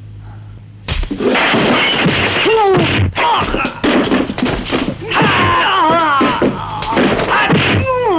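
Kung fu film fight sound track: repeated dubbed punch and kick whacks and thuds over loud music, with fighters' shouts and yells. It starts about a second in, after a brief lull.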